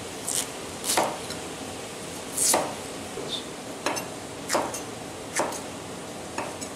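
A large knife chopping potatoes on a wooden cutting board: about seven separate, unevenly spaced chops, each the blade going through the potato and knocking on the board.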